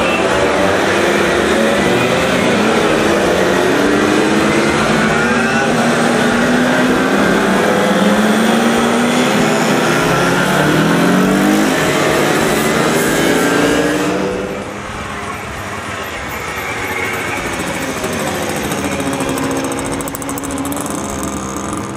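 A string of small vintage two-stroke moped engines buzzing past one after another. Their pitch rises and falls as each rider goes by, and the sound drops quieter about two-thirds of the way through.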